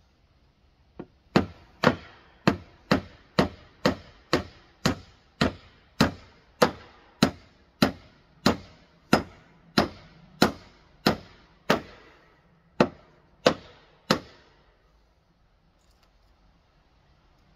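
Hammer driving nails into rough-sawn wooden boards: a light tap, then about twenty sharp blows at roughly two a second, which stop about three seconds before the end.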